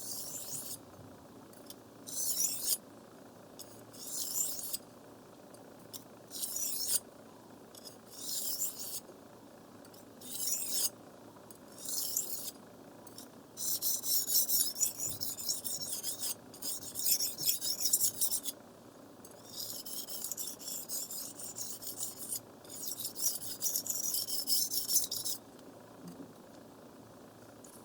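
Knife blade stroked across a wet water whetstone with a scraping rasp: single strokes about every two seconds at first, then faster back-and-forth rubbing in longer runs from about halfway in, stopping a couple of seconds before the end.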